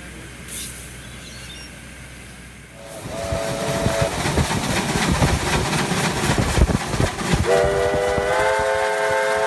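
Quiet background for about three seconds, then a full-size steam locomotive working hard with loud exhaust chuffing. Its whistle gives a short blast as the chuffing starts and a long blast about two seconds before the end.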